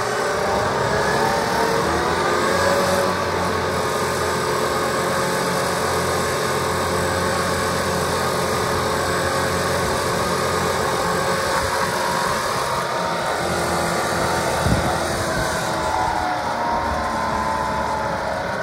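Tractor diesel engine running with a McConnel PA6400 hedge trimmer mounted; the engine note rises about two seconds in, holds steady, and falls away near the end. A single short knock is heard late on.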